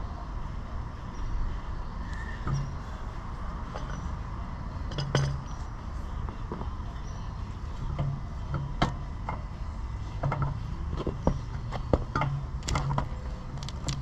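Scattered sharp clinks and knocks of steel parts being handled, more frequent in the second half, over a steady low hum.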